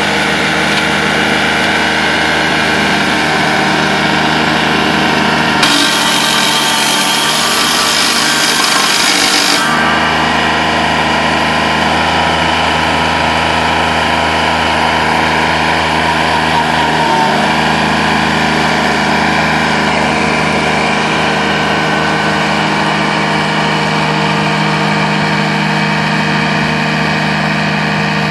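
Traxx remote-controlled tracked mower running steadily, its engine driving a flail mowing head through tall grass and weeds. A brighter hissing sound joins about six seconds in and lasts about four seconds, and the engine note shifts slightly a little past the middle.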